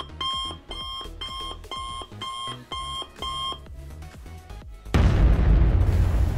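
Electronic alarm-style beeping, a two-tone beep repeating about twice a second, which stops about three and a half seconds in. About a second later a loud, steady rushing noise sets in.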